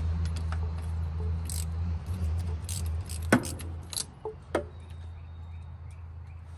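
Metal hand tools clinking and a socket wrench ratcheting as spark plugs are worked out of the inline-six cylinder head, with a few sharp clicks in the second half. A steady low hum runs underneath.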